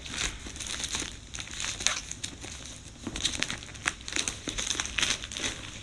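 Packaging being unwrapped by hand: irregular crinkling and rustling with scattered small clicks.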